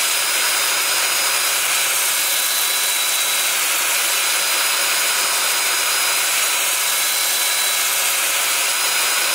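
Power sanding: a drill-driven 2-inch sanding disc of 240 grit pressed against a Red Mallee burl bowl spinning on the lathe. A steady, even hiss of abrasive on the hard wood, over the drill motor's faint steady whine.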